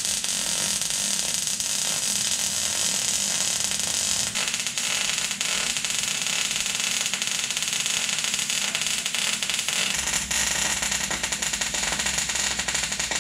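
Arc welding on a rear differential housing: a steady crackling hiss from the welding arc.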